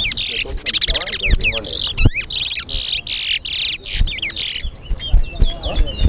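Caged towa-towa (chestnut-bellied seed finch) singing its fast, repeated warbling song phrases in quick succession. The song stops about four and a half seconds in, leaving scattered short chirps.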